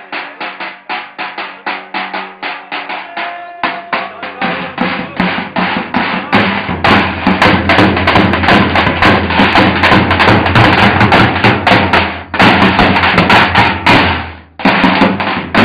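Two davuls, large double-headed Turkish bass drums, beaten in a fast, driving rhythm. The beating grows louder and denser about six seconds in and breaks off for a moment near the end before going on.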